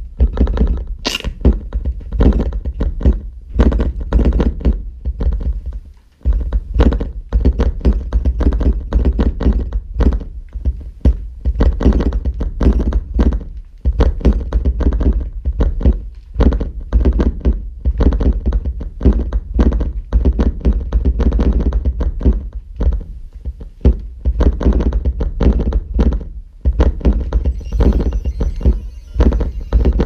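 Live experimental electronic sound from hand-built circuits driven by a single-knob controller: a dense, irregular stream of heavy low thuds and sharp clicks. It breaks off briefly about six seconds in, and a high hiss joins near the end.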